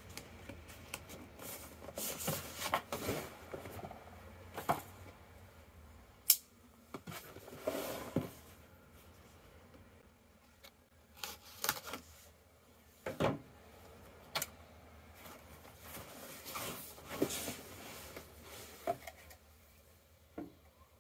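A cardboard box being handled and opened by hand: scattered taps, scrapes and rustles of cardboard, with a knife cutting through the tape seal.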